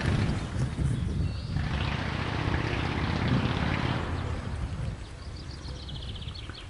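Outdoor ambience dominated by wind buffeting the microphone as a fluctuating low rumble, with a brighter rushing gust for a couple of seconds in the middle.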